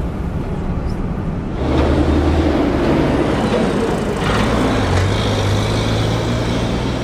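Motor vehicle engine running with road noise, growing louder about one and a half seconds in and changing pitch again a little past the middle.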